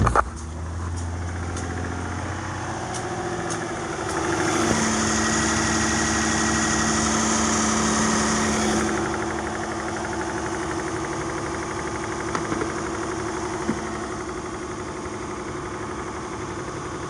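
Chrysler 300 engine idling steadily with no rattle, after the rattling noise has been fixed. It runs louder for about four seconds around a third of the way in, then settles back to a steady idle.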